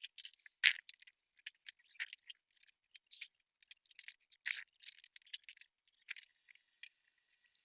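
Irregular small clicks, taps and scrapes from hands working on an HP EliteBook laptop's casing and parts, with one sharper tick near the start.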